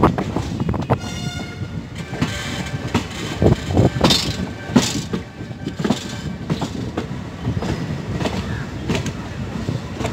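A train horn sounds and stops about two seconds in. Then the moving passenger train rumbles steadily, with its wheels knocking irregularly over rail joints and points.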